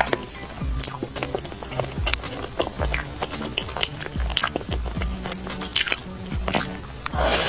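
Close-up chewing and biting of a soft, sauce-filled bread dessert, with many small moist clicks, over background music.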